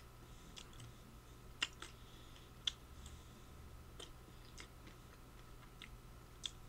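Close-up mouth sounds of a man chewing a piece of dark chocolate: scattered wet clicks and smacks, the sharpest about a second and a half in, near three seconds in and near the end, over a faint steady hum.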